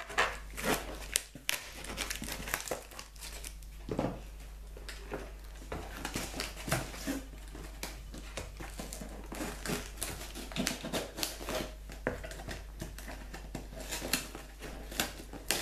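Crinkling and rustling of a heavily taped parcel's packaging as packing tape is picked at and torn off, with irregular small clicks and scrapes, busier near the end.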